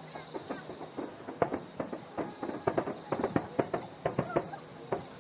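Crackling fireworks: many small pops in a rapid, irregular patter that grows denser after about a second.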